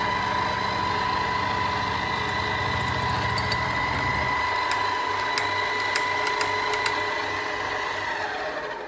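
Milling machine spindle running with a steady whine, a low rhythmic rumble underneath that stops about halfway through, and a few light clicks; near the end the whine falls in pitch and dies away as the spindle winds down.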